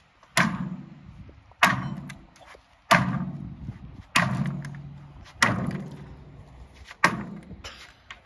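A run of six hard strikes, about a second and a quarter apart, each ringing out with a low hum for about a second before the next.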